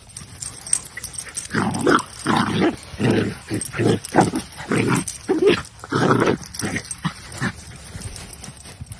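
Small dogs barking in rough play: a run of a dozen or so short barks, two or three a second, starting about a second and a half in and stopping near the end.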